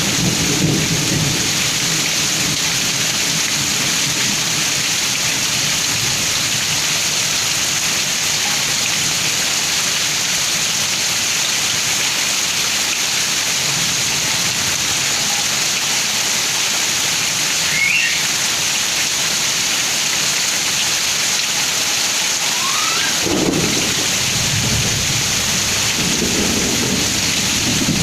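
Heavy rain pouring down steadily, with thunder rumbling low at the start, again about two-thirds of the way through, and once more near the end.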